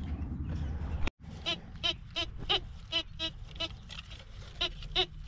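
TX850 metal detector, a Gold Bug 2 clone, beeping in short pitched tones about three times a second as the coil is swung back and forth over a buried metal target, starting about a second in. The signal comes with a target reading of about 76.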